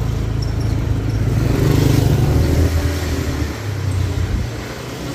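Motor scooter engine running under way, swelling louder about two seconds in and easing off near the end.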